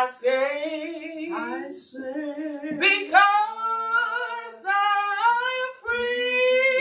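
A woman singing a gospel hymn unaccompanied, in long held phrases with wide vibrato and short breaths between them.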